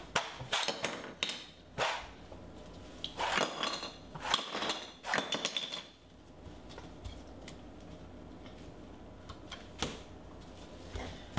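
Plastic toys knocking and clattering in a toddler's hands on a hard floor, a string of irregular sharp knocks for about six seconds, then a quieter stretch with only a few faint knocks.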